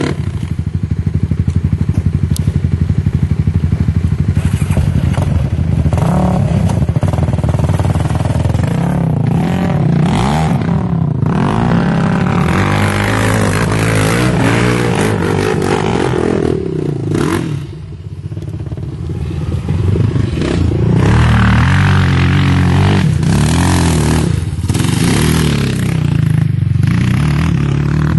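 Sport quad (ATV) engines revving, pitch rising and falling as the throttle is worked in soft sand; the sound drops briefly about two-thirds of the way through, then picks up again.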